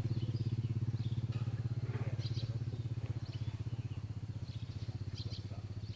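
Motorcycle engine idling with a steady, even, rapid pulse, easing off slightly toward the end.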